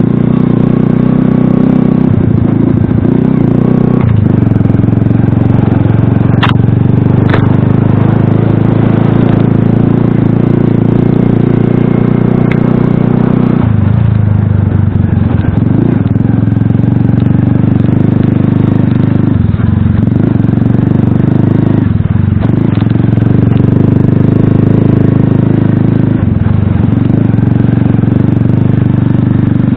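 Alpha moped's small single-cylinder engine running hard under way, with brief drops in engine note every few seconds as the throttle is closed or a gear is changed, plus a couple of sharp clacks early on.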